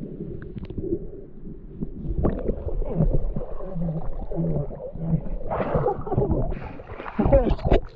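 Muffled underwater rumble from an action camera held in a shallow river. About two seconds in it gives way to water sloshing and splashing around the camera as it comes up out of the water, with a few short low hums and sharper splashes near the end.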